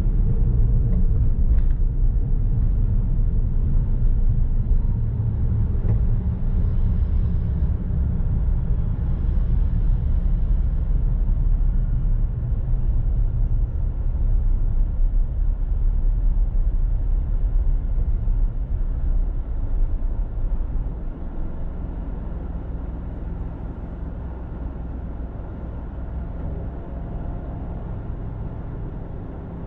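Car driving on city streets: a steady low rumble of road and engine noise, which drops in level about twenty seconds in.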